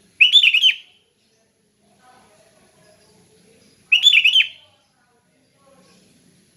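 Sooty-headed bulbul (kutilang) singing: two short phrases of quick notes, about three and a half seconds apart.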